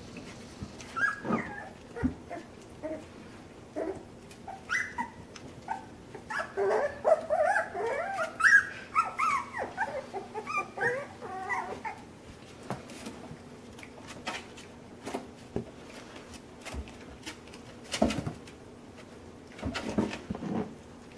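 Miniature American Shepherd puppies whimpering and yipping in short high squeaks, most of them in a busy run in the middle, with scattered knocks and scuffles of play.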